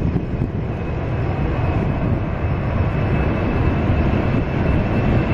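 Four-engine Boeing 747 at takeoff power on its takeoff roll toward the listener: a loud, steady, deep rumble with a faint high whine over it.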